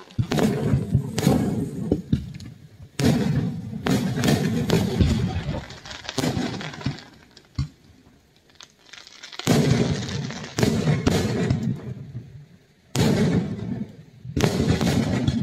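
Aerial fireworks shells bursting, a series of booms with sudden starts that each rumble away over a second or two. Several come close together near the start, then further ones after gaps.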